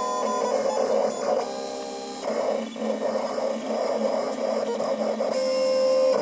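USCutter vinyl cutter cutting vinyl: its motors whine in steady tones that change pitch every second or two as the blade carriage and rollers move the sheet, over a steady mechanical whirr.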